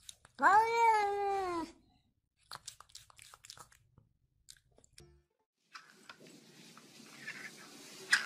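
A domestic cat meows once, a drawn-out call of about a second that drops in pitch at its end; only a few faint ticks follow.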